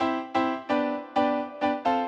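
Background music starting abruptly from silence: a melody of short struck notes that ring and fade, about three or four a second.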